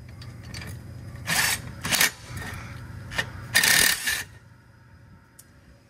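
Matco Tools cordless wrench loosening the clamp bolt on an air brake chamber, running in short bursts about a second and a half, two, and three and a half seconds in, then stopping a little after four seconds.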